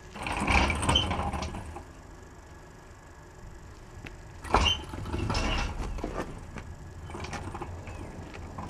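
Engine crane on caster wheels being pushed over a concrete floor with a cut-off chassis section hanging from it: the casters rumble and the steel frame, chain and load rattle and creak in three spells, with a sharp knock about four and a half seconds in.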